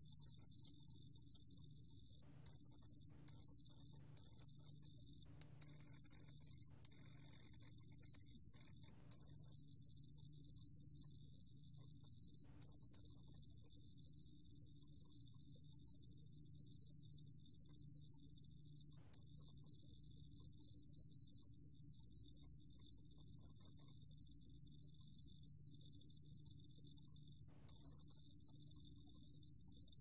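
A 루루곰귀뚜라미 (ruru-gom cricket) singing a continuous high-pitched trill, recorded at 28 °C. The trill breaks off for a split second several times, most often in the first nine seconds and a few times later.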